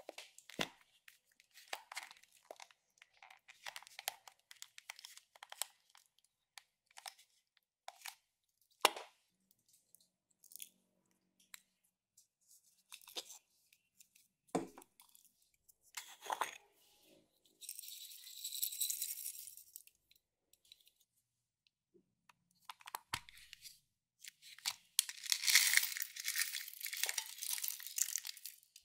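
Close-miked handling of small plastic cosmetic containers and glitter over a glass dish of slime: scattered clicks and crackles, a steady hiss lasting about two seconds in the middle, and a longer, denser run of crackling and scratching near the end as a plastic compact is worked open.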